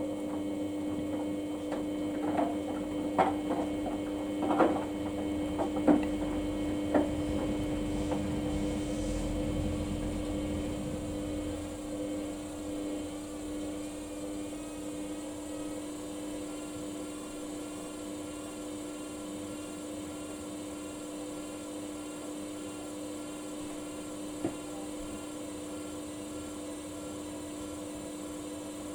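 Samsung front-loading washing machine running a Daily Wash 30 cycle: a steady motor hum with several sharp knocks in the first several seconds and a low rumble that dies away after about twelve seconds.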